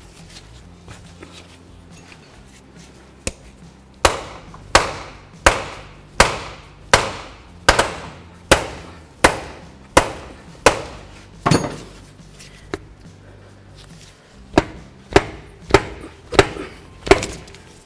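Rubber mallet striking the nut threaded on the end of a Toyota FJ Cruiser front CV axle, about eighteen blows, each with a short ring. A steady run of one blow about every three-quarters of a second, a pause, then a quicker run near the end. The blows drive the inner shaft into the differential past its seal to seat its lock clip.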